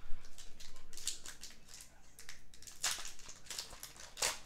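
Foil Pokémon booster pack wrappers crinkling as they are handled and torn open, an irregular run of sharp crackles, the strongest about four seconds in.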